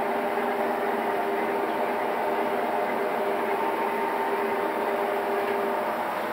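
DIP 300 lathe driven by a 2.2 kW brushed DC motor, running steadily at speed: an even hum of several held tones over a rushing noise, with one tone dropping away near the end.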